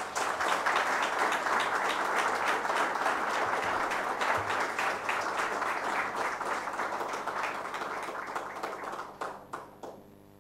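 Audience applauding, a dense spread of many hands clapping that thins out to a few scattered claps near the end.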